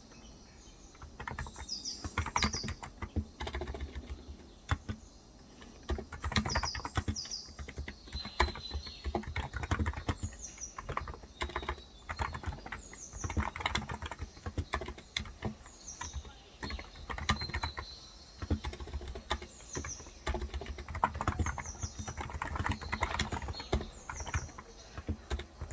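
Typing on a Cox Endeavor electrostatic capacitive (topre-style) tenkeyless keyboard with light 35 g keys: quick muted keystrokes in bursts with short pauses. A bird repeats short falling chirps over the typing.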